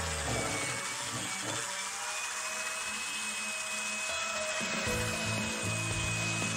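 Cordless screwdriver spinning a metal mixing rod in a glass jar of two-part polyurethane: a steady motor whine with the rod rubbing against the glass, over background music.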